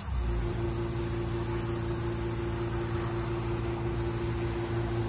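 Airbrush air compressor running with a steady hum and a steady mid-pitched tone that set in right at the start, under an even hiss of air and glue mist from the airbrush as it sprays gold-leaf size.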